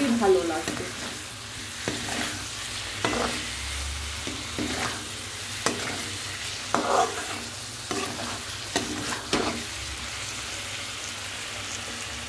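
Spicy chicken and potato curry sizzling in a frying pan as a spatula stirs it, scraping against the pan about once a second. Near the end the scraping stops and only the steady sizzle remains.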